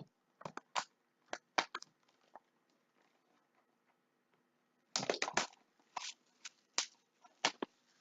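Scattered sharp clicks and crackles of things being handled on a tabletop, in two clusters: one from about half a second to two seconds in, and another from about five seconds in, with near quiet between.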